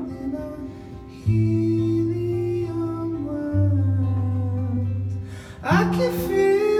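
A man singing to his own acoustic guitar in a live performance. Low strummed chords ring out about a second in and again past three seconds, and the voice comes in louder with a rising line near the end.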